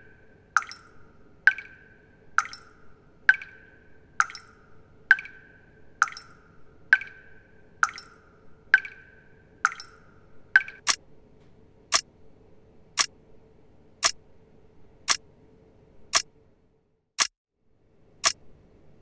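Leaking tap dripping steadily, about one drop a second, each a ringing plop. About eleven seconds in the drips give way to sharp ticks about once a second from a wristwatch.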